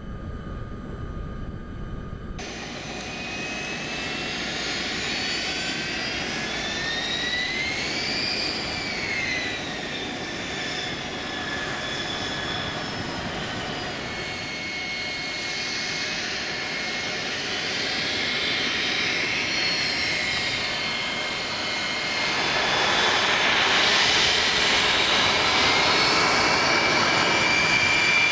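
Jet aircraft engine running, a high turbine whine over steady rushing noise; the whine rises and falls in pitch twice, and the engine noise grows louder in the last few seconds.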